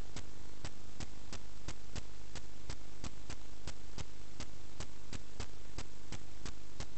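Sewer inspection camera rig's steady electrical hum and hiss, with an even ticking about three times a second as the push camera feeds down the pipe.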